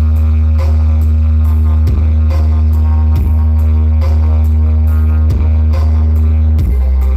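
Electronic dance music with heavy bass played loud through a large Brewog planar sound-horeg rig: a deep, sustained bass note runs throughout, with a drum hit about every second.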